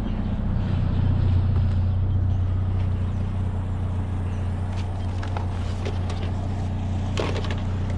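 GMC Sonoma pickup's engine idling steadily, with a few faint knocks and a brief clatter about seven seconds in.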